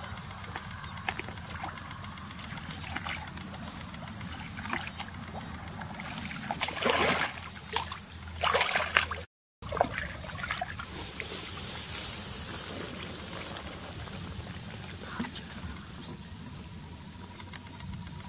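Water trickling and splashing, with two louder splashes a little past the middle. The sound drops out completely for a moment soon after.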